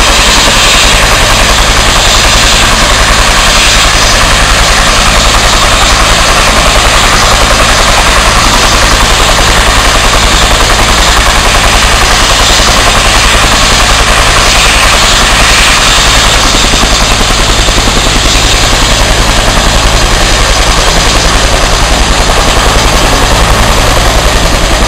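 Bell 212 helicopter running on the ground, loud and steady: the fast, even chop of its two-bladed main rotor over a high turbine whine.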